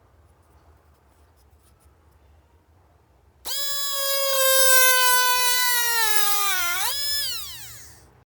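Small 12 V DC motor drill starting about three and a half seconds in with a loud high whine. Its pitch sags slowly for about three seconds, jumps up briefly, then falls away as the motor winds down and stops.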